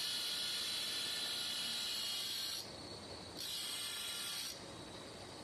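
Grinder with a thin cut-off disc cutting grooves into a steel vise-jaw plate: a loud, hissing grind for about two and a half seconds, a short drop as the disc eases off, then a second shorter cut a little past the middle.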